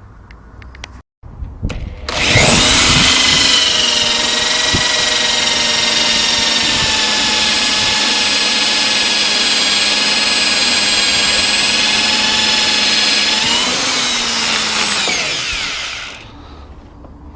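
Power drill with a 4.5 mm bit boring into the head of a seized door-hinge screw. The motor starts about two seconds in and runs at a steady whine, speeds up briefly near the end, then winds down and stops.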